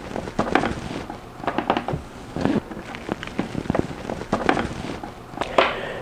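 Plastic film wrapped around a coil of Ethernet cable crackling and rustling as the cable is pulled and handled, with irregular clicks and taps throughout.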